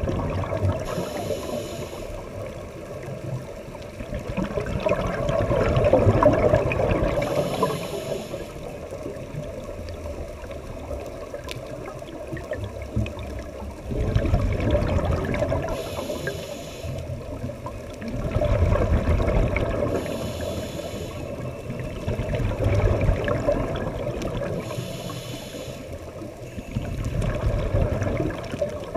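Scuba diver breathing through a regulator underwater, heard through the submerged camera: a short hiss on each inhalation, then a longer bubbling rush of exhaled air, repeating every few seconds.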